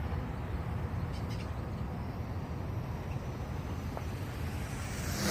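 Steady low wind rumble on the microphone outdoors, with a rush of hiss swelling right at the end.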